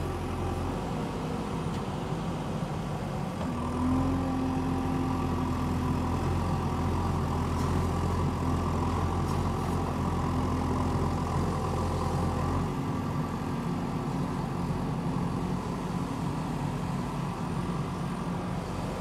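JCB backhoe loader's diesel engine running steadily while the backhoe arm digs. The engine note rises and strengthens about four seconds in, holds, and drops back about thirteen seconds in.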